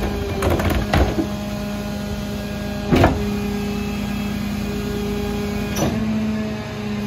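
Hydraulic cart tipper on a Leach 2R-III rear-loader garbage truck holding a wheeled trash cart up over the hopper: a steady hydraulic whine over the running truck. Sharp knocks about one and three seconds in, and again near the end, as the cart bangs on the tipper. The whine steps slightly higher in pitch near the end.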